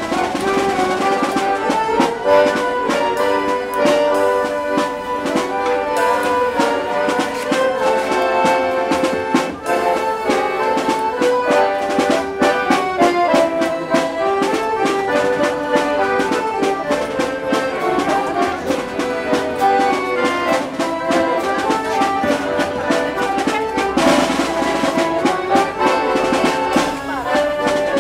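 Accordion ensemble playing a tune together: several accordions sounding the melody and chords in unison over a steady beat.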